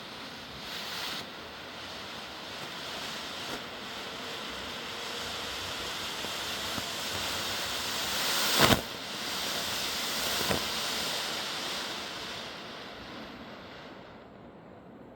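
Smoke firework hissing steadily as it burns, slowly building and then dying down near the end. A single sharp crack about two-thirds of the way through stands out as the loudest sound, with a smaller one a couple of seconds later.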